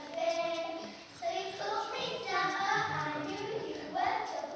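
Young girls singing a song together into a microphone, in phrases with held notes.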